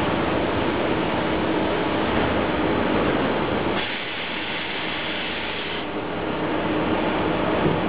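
Steady machinery noise, a constant hum and hiss with a faint steady tone in it. From about four seconds in the low end drops away and a brighter hiss takes over for about two seconds, then the first sound returns.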